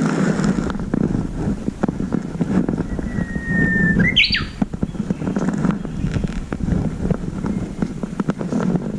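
A Japanese bush warbler sings once, about three seconds in: a long held whistle, then a quick rising flourish. Under it is a loud low rumble with many small clicks.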